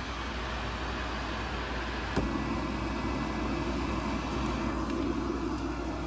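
Small tabletop fume extractor fan running steadily, a hum of air being drawn in. About two seconds in a light tap is heard as a card is laid over the intake tube and held there by the suction, and the rushing-air note then grows louder and deeper.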